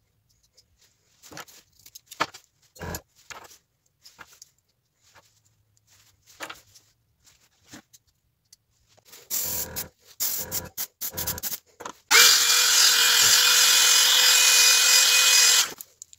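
Spring clamps and tools clicking and knocking as they are handled. Then, about twelve seconds in, an airbrush hisses steadily and loudly for nearly four seconds and cuts off suddenly, spraying a scale pattern through window screen onto a swimbait.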